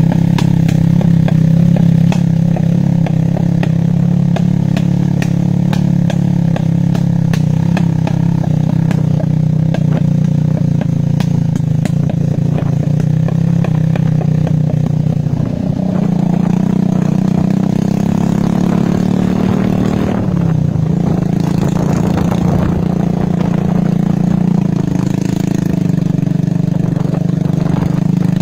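Motorcycle engine running steadily while riding a dirt forest track, with light rattles. The engine note shifts about halfway through and briefly drops and picks up again about two-thirds of the way in.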